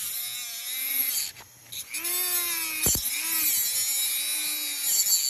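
Dremel rotary tool with a cut-off wheel grinding through the steel starter shaft at the back of a Continental C85 aircraft engine. Its high-pitched whine rises and falls in pitch as the wheel bogs under load, dips briefly a little over a second in, and there is a sharp click about three seconds in.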